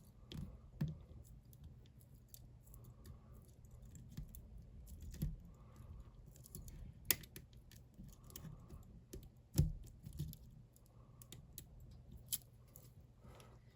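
Lock picks working inside a bike lock's cylinder: faint, irregular small metal clicks and scrapes as the pins are probed, with a few sharper clicks in the second half.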